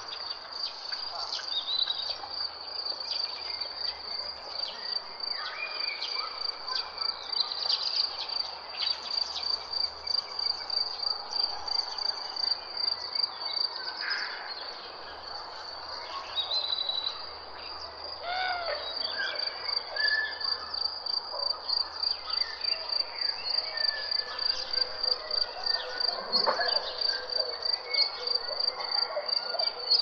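High, even insect chirping, cricket-like, repeating a few times a second without a break, with short bird whistles and calls scattered over it.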